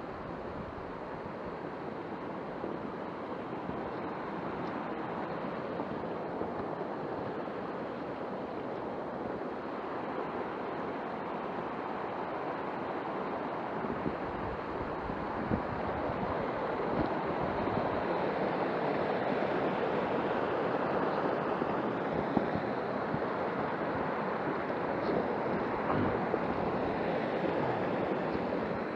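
Mountain stream rushing over rocks and small waterfalls in a steep gully, a steady rush that grows louder through the first half, with a few faint knocks that fit footsteps on stony ground.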